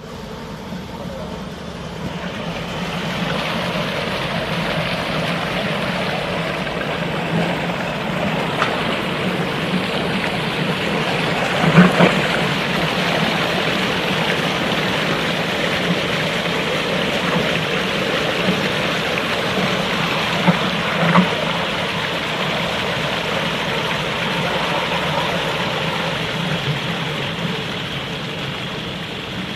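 Wafer batter mixer running, its agitator churning water in the stainless steel bowl: a steady mechanical whir with splashing that builds up over the first few seconds and then holds. Two short knocks stand out, about midway and about two-thirds through.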